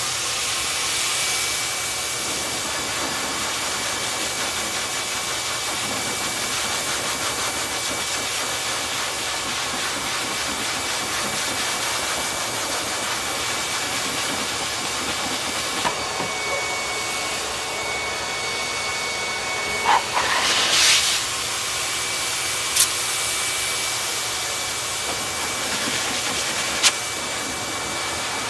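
High-velocity pet grooming dryer blowing a steady, loud rush of air with a high motor whine through its hose and nozzle, blowing loose undercoat out of a shedding puppy's fur. About two-thirds of the way through the whine briefly dips in pitch and comes back, and two sharp clicks are heard near the end.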